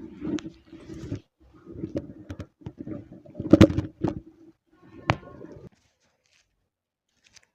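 Spinal manipulation: several sharp joint cracks, the loudest about three and a half seconds in, over a low drawn-out voice. The sound cuts off abruptly shortly before six seconds in.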